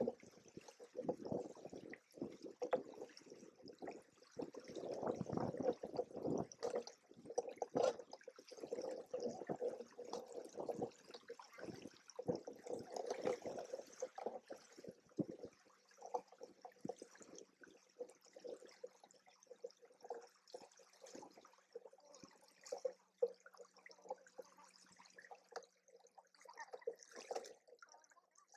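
Lake water splashing and gurgling irregularly against the hulls of a Hobie Cat 16 catamaran under sail. The splashes are busy for the first half and grow sparser after about fifteen seconds.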